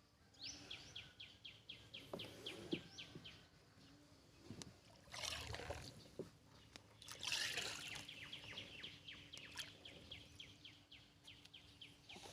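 A bird calls in a long run of quick, falling notes, about five a second, then repeats the run after a pause. Between the runs there are brief rushing water noises.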